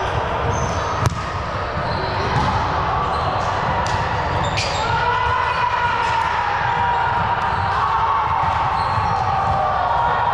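Indoor volleyball game: two sharp ball hits, about a second in and again near the middle, over short high squeaks and players' voices across the gym.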